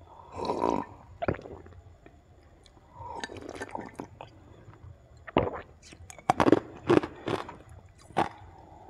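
A person drinking water from a glass mug close to the microphone: a sip near the start, another about three seconds in, then a run of swallowing gulps, about two a second, in the second half.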